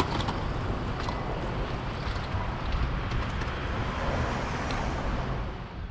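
Outdoor street ambience: a steady hum of road traffic with a low rumble and scattered faint clicks, fading out near the end.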